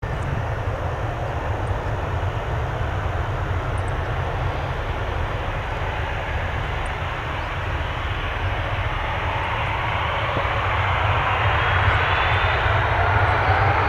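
Jet engines of a Boeing 737-800 (CFM56-7B turbofans) running with a steady roar and low rumble. From about nine seconds in, a whine rises in pitch and the sound grows louder as the engines spool up.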